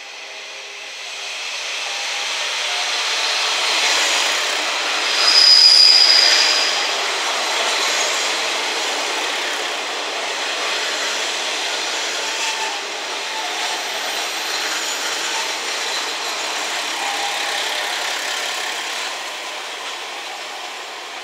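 KiHa 40-series diesel railcars rolling along a platform at close range, with a steady rattling rumble of wheels on rail. A high-pitched squeal rises about five seconds in and is the loudest part, lasting about a second and a half. The sound eases off toward the end.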